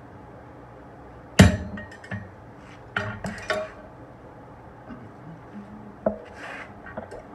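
Metal clanks of a blacksmith's hammer and tongs against a steel anvil. One loud clank comes about a second and a half in, followed by several lighter scattered clinks.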